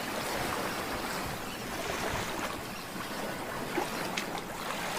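Steady rush of waves washing on a shore, an even hiss with a few faint clicks near the end.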